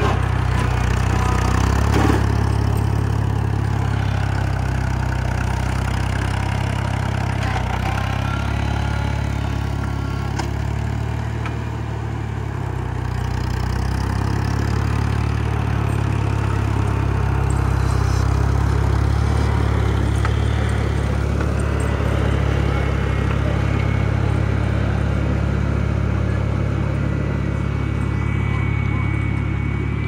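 Farm tractor engine running steadily and close by while the front-end loader works a snowbank, with a single clank about two seconds in.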